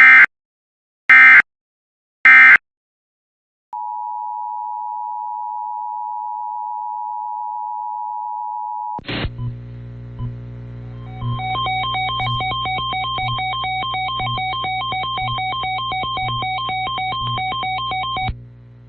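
Three short Emergency Alert System data bursts about a second apart, the end-of-message code. About a second later comes the steady two-tone EAS attention signal, which runs for about five seconds. It breaks off into an electronic alert jingle of fast alternating beeps over a low pulse about once a second, which stops just before the end.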